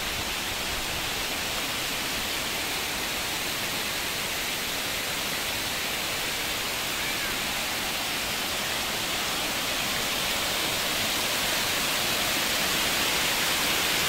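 Rushing water of a waterfall: a steady hiss that grows slowly louder toward the end.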